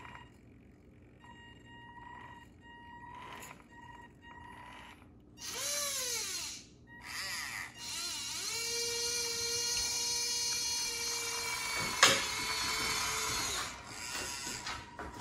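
Small electric drive motor and gears of a 1/14 Carson Linde H40D RC forklift whining as it drives. The pitch rises and falls with the throttle, then holds steadier for a few seconds. A single sharp click comes about twelve seconds in and is the loudest sound.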